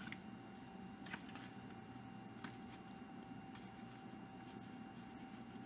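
Faint handling of baseball trading cards being flipped and slid against each other: a few soft ticks and rustles, over a faint steady tone.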